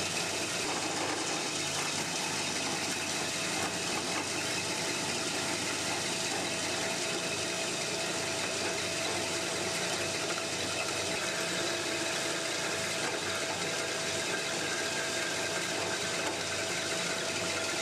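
Horizontal bandsaw running steadily as its blade cuts through stock under a flow of coolant, the bow lowering slowly under hydraulic control; a faint steady whine sits over an even mechanical hiss.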